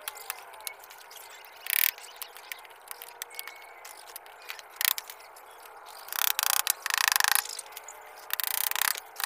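Hand-tool work on a bird-cage gate frame: scattered clicks and several short rasping, ratchet-like scraping bursts, the longest ones in the second half.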